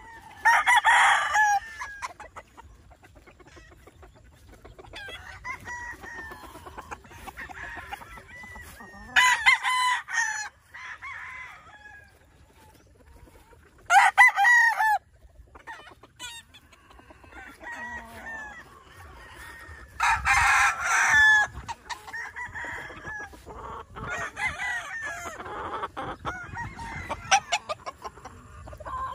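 Tethered gamefowl roosters crowing in turn: four loud crows spaced through, with fainter crowing from other birds between.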